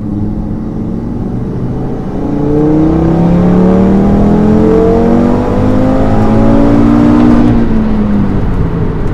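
Audi RS3's turbocharged 2.5-litre five-cylinder engine, fitted with a hybrid turbo, heard inside the cabin on a full-throttle logging pull in third gear from about 2,500 rpm. The engine note rises steadily for about five seconds, then drops as the throttle is lifted near the end.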